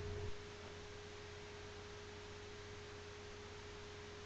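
Faint steady single-pitched hum, a little below 500 Hz, over low background hiss. A louder hiss at the very start drops away within the first half-second.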